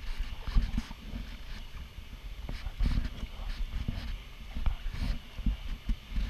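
Kayak paddling: the double-bladed paddle dipping and pulling through the water, with irregular low thumps and a few sharp knocks carried through the kayak's hull.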